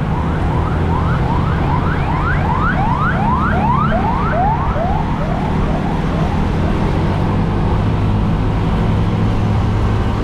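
An emergency vehicle's siren in a fast yelp, about three rising sweeps a second. It grows louder to a peak three to four seconds in and fades out by about six seconds, over the steady low rumble of a motorcycle engine and wind.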